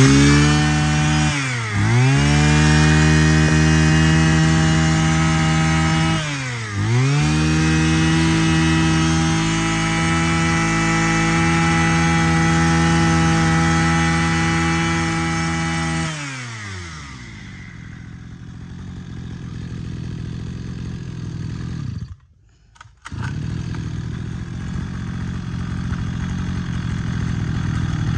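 Mitsubishi TL33 brush cutter's 33cc two-stroke engine running at high revs. The pitch dips and climbs back twice in the first seven seconds, then holds steady. About sixteen seconds in it winds down to a lower, quieter run.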